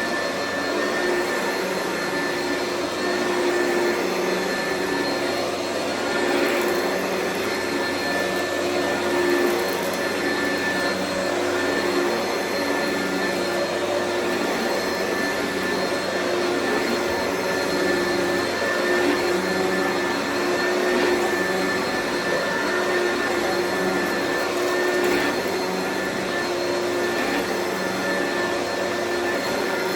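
Oreck vacuum cleaner running steadily, its motor giving a constant whine over the rush of air.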